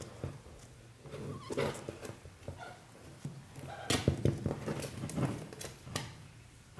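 Kakariki (New Zealand parakeet) chicks giving raspy begging calls while scuffling in the nest's wood shavings. The loudest calls come about four seconds in.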